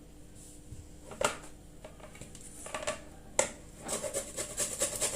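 Lemon rind being grated: a few separate knocks, then quick repeated scraping strokes from about four seconds in.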